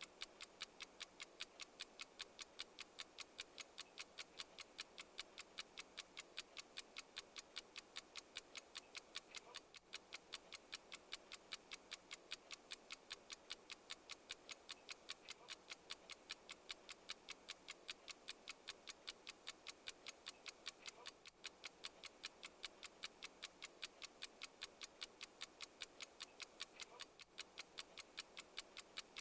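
Clock ticking in a steady, even tick-tock, several sharp, bright ticks a second.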